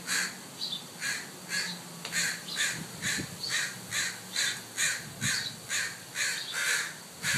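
Adult crows cawing in a steady run, about two caws a second: alarm calls from parents defending a fledgling.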